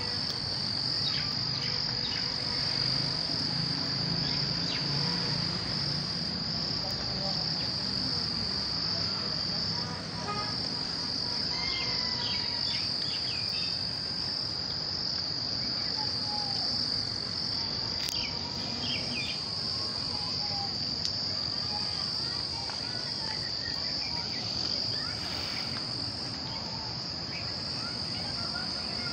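Insect chorus: a steady, shrill, high-pitched drone that carries on unbroken, with a few faint short chirps over it.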